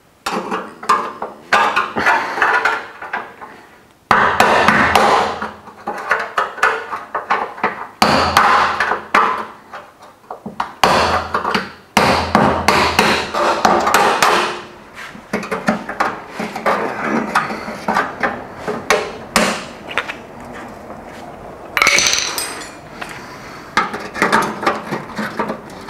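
Hammer driving a chisel against the thin sheet-metal heat shield under a car to cut it free: fast runs of sharp metallic blows, several a second, in repeated bursts.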